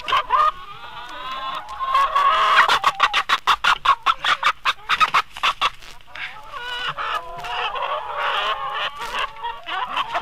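Chickens clucking and cackling, with a fast run of cackles about two seconds in.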